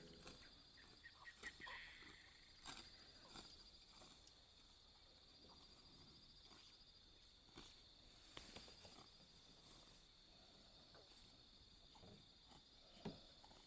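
Faint, steady high-pitched insect chirring with a fast pulse, with a few soft clicks and rustles over it.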